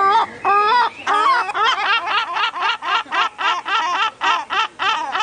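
A gull's long call: two drawn-out wailing notes, then a fast run of shorter laughing yelps, about four a second, to the end.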